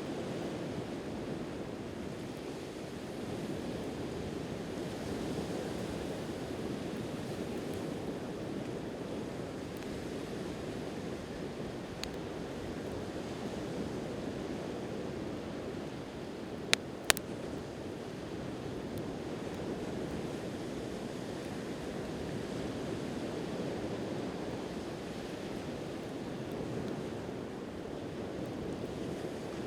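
Steady wash of sea waves on the shore, with a little wind on the microphone. About halfway through, two sharp pops in quick succession, with a fainter one a few seconds earlier, from the wood of a campfire.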